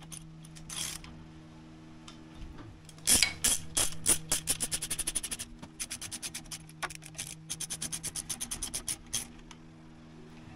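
Hand ratchet clicking in quick runs while a stainless T-bolt hose clamp is tightened on a silicone hose joint. The clicks come in two main bursts, the louder about three seconds in and another near the end.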